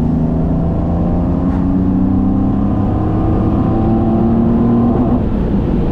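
BMW M30B35 3.5-litre straight-six breathing through individual throttle bodies and velocity stacks, heard from inside the cabin as the car accelerates. Its induction howl climbs steadily in pitch, then the note breaks off about five seconds in.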